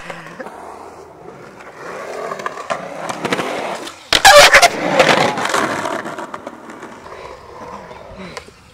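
Skateboard wheels rolling on concrete, growing louder, then a loud scraping grind of the trucks along the bowl's lip about four seconds in, followed by rolling that fades away.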